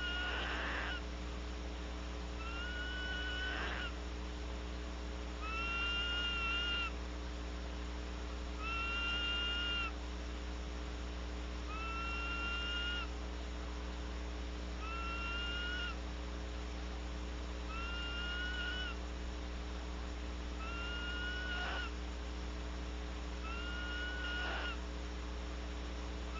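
A barn owl gives a repeated screeching call, each call about a second long with a slight upward slide at the start, coming about once every three seconds. A steady electrical hum runs underneath.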